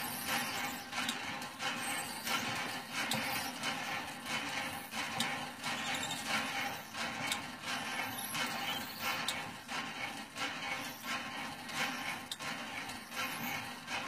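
Hand pump being worked steadily by its long handle, the handle and pump head squeaking and knocking in a regular rhythm with each stroke.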